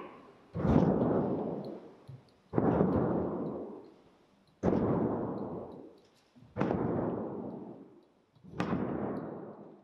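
A drum beaten slowly and evenly, five deep strikes about two seconds apart. Each beat rings on and fades over a second or more in the church's reverberation.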